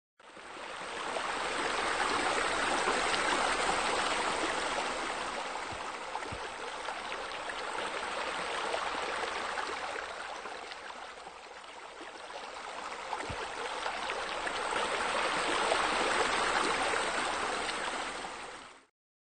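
Water cascading and splashing in a steady rush, like a pool water feature spilling into the pool. It fades in at the start, dips a little about halfway through, swells again, then fades out near the end.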